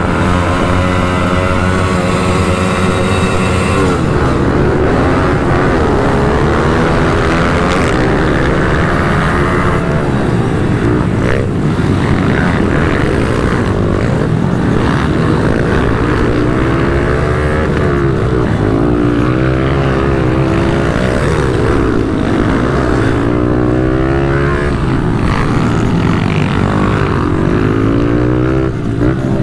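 A pack of pit bike engines held at high revs on the start line. About four seconds in the pitch changes, and the onboard Honda CRF110F's single-cylinder four-stroke engine revs up and down repeatedly through the gears while the other pit bikes run close by.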